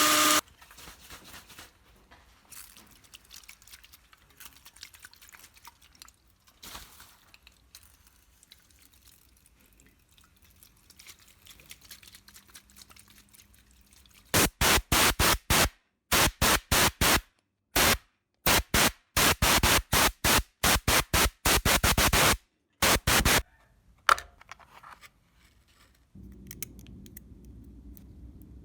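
Faint small handling clicks, then a run of about twenty short, sharp-edged spray hisses over some nine seconds, cut off abruptly each time. A low steady hum starts near the end.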